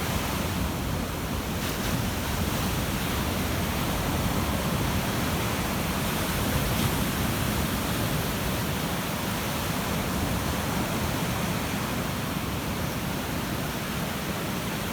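Ocean surf washing on a beach: a steady roar of breaking waves with no single crash standing out.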